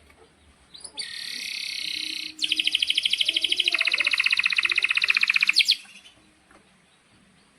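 Male domestic canary singing: first a short buzzy trill, then a loud, fast rolling trill of about fifteen notes a second that lasts some three seconds and stops abruptly.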